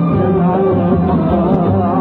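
Middle Eastern song played by a violin orchestra and oud, with a male singer's voice.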